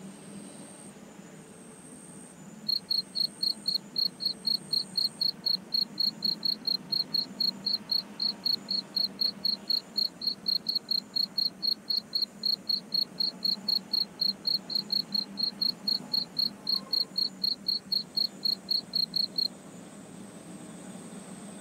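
A cricket chirping in a fast, even train of high pulses, about four a second, that starts a few seconds in and stops near the end. A fainter, higher insect call beats on and off over the first few seconds.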